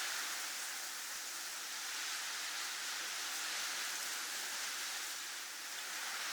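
Snowstorm wind ambience: a steady, even high hiss that swells and eases only slightly, with no low rumble.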